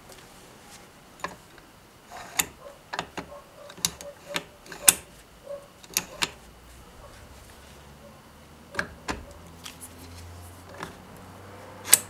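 Sharp metallic clicks and clacks of an aftermarket steering-wheel quick-release hub being worked by hand as the wheel is taken off and snapped back on. The clicks come thickly through the first half, a few more follow, and a loud click near the end comes as the wheel is pushed back onto the hub.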